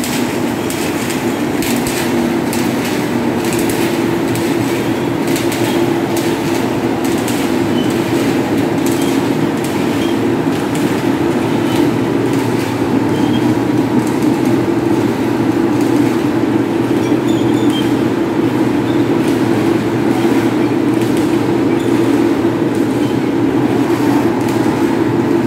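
Steel coil slitting line running: a steady machine drone with rattling clicks of steel strip, the clatter thinning after about ten seconds.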